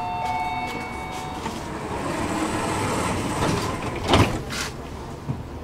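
Tram door-closing sequence: a steady two-note warning tone for the first second and a half, a swell of noise as the doors move, then two sharp knocks about four seconds in as the doors shut.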